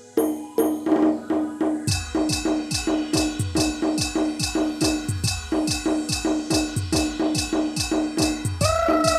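Timli band music: a quick, even beat of sharp clicking percussion strikes over a steady tone. Deep bass drum thumps that drop in pitch join about two seconds in, and a held melody note slides in near the end.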